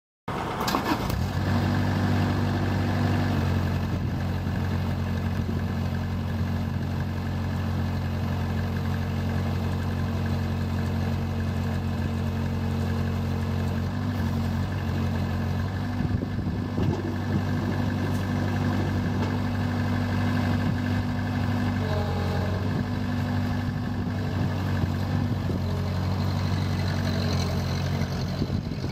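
Broce BB250B road broom's engine running steadily, its note shifting slightly about three seconds in and again around the middle.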